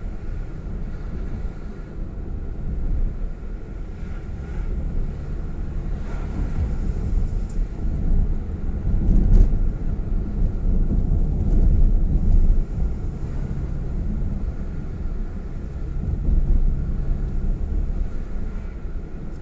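Engine and road noise of a car being driven, heard from inside the cabin: a steady low rumble that grows louder for a few seconds about halfway through.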